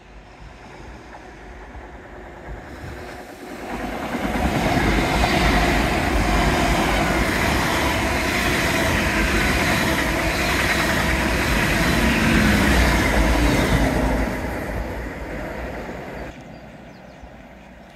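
A GWR Hitachi Intercity Express Train passing close by on the sea-wall line: the rumble and rush of its wheels and running gear build up about four seconds in, stay loud for some ten seconds, then fade away near the end.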